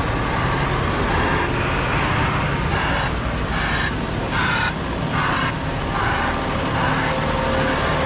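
Heavy diesel truck engines idling, a steady low rumble, with a few short bursts of higher-pitched sound about three to six seconds in.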